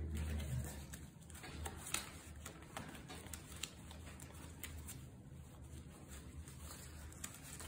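Faint handling sounds as gloved hands turn and work a rubber-banded shirt: soft fabric rustle and scattered light clicks over a low steady hum.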